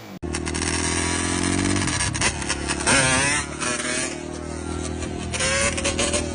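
Yamaha Banshee 350 quad's twin-cylinder two-stroke engine running steadily, getting a little louder for a moment about halfway through.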